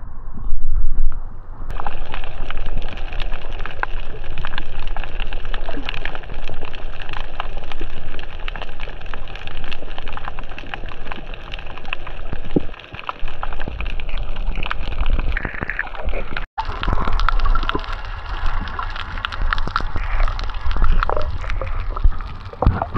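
Water sloshing and splashing around a paddled kayak, with many small splashes and a steady low rumble underneath.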